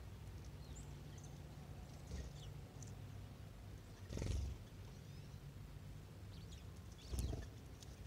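Cassin's finches at a seed pile on a lawn: scattered faint, thin, high chirps, and twice, about four seconds in and again near the end, a brief loud flutter of wingbeats as a bird takes off close by.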